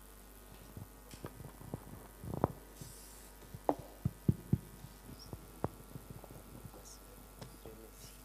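Dull thumps and knocks picked up by the pulpit microphone as it is handled, over a faint steady hum from the sound system; the loudest knocks come a couple of seconds in and in a quick cluster around the middle.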